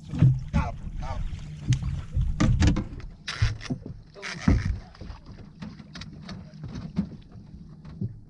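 Knocks and bumps of handling on a fishing boat over a low steady rumble, while a muskie is fought on a bent rod and the landing net is picked up; two short hissy bursts come in the middle.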